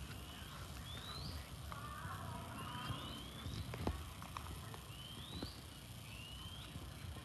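Short rising whistled calls, typical of a bird, often two in quick succession, recurring about every two seconds over a low rumble.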